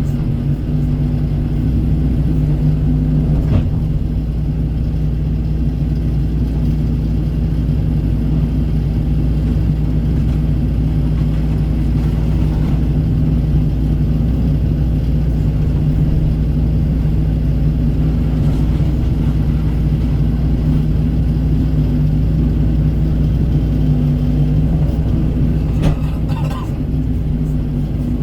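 Kobelco SK135 excavator's diesel engine running steadily under working load, with a couple of brief knocks, one near the start and one near the end.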